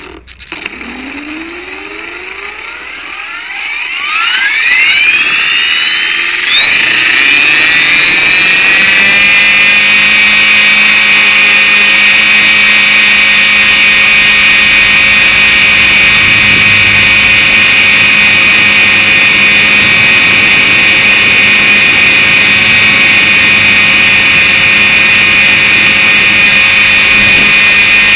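Align T-Rex 450 Pro electric RC helicopter's motor and rotor spinning up from standstill: a whine rising in pitch over the first eight seconds or so, then settling into a steady high whine as it flies. Heard close up from the camera mounted on the helicopter's frame.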